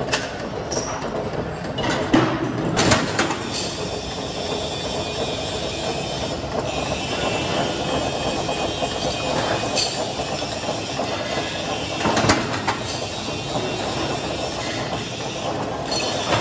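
Mechanical sheet-metal guillotine shear running steadily, with a few sharp metallic clanks as the blade comes down and cuts sheet steel: two about two to three seconds in and another about twelve seconds in.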